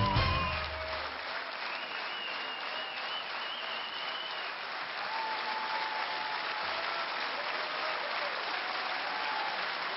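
Large audience clapping steadily in welcome as a performer comes on stage. Stage music stops about a second in.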